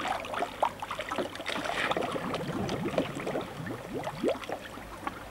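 Swimming-pool water splashing and sloshing as a child swims through it, a busy run of small irregular splashes.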